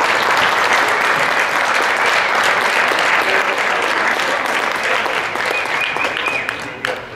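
Crowd applauding in a gym: dense, steady clapping that dies away near the end.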